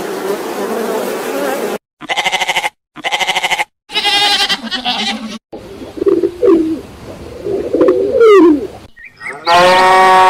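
A string of animal sounds: honeybees buzzing at a hive for the first two seconds, then two short quavering bleat-like calls and other brief calls, then low dove coos, and near the end a cow starts a long steady moo.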